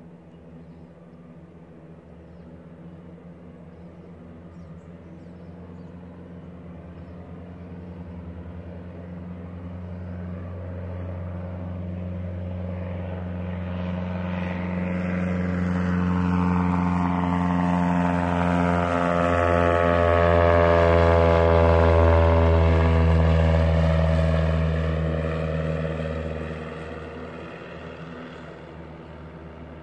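Float plane's propeller engine droning as it flies past: it grows steadily louder for about twenty seconds, is loudest about three-quarters of the way through, with its tone sweeping as it passes, then fades away.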